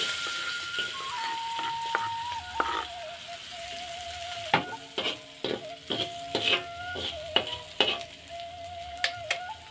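Chopped garlic, shallots and chilies sizzling in hot oil in a wok. From about halfway through, a metal spatula knocks and scrapes against the wok as they are stirred.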